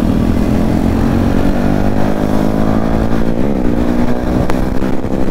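Motorcycle engine running steadily under way at about 60 km/h, heard from the rider's own bike with wind noise; its note rises slowly, wavers briefly a little past halfway, and a single short click comes near the end.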